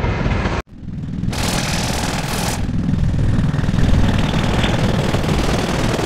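Distorted, edited steam-train sound effect: a steady whistle tone cuts off abruptly about half a second in, then a loud, low, rattling rumble of the train starts up, with a burst of hiss from about one to two and a half seconds in.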